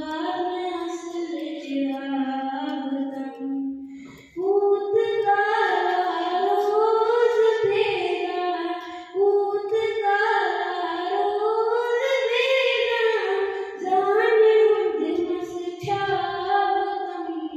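A child singing solo and unaccompanied, a slow melody of long held notes that glide from pitch to pitch, with a short pause for breath about four seconds in.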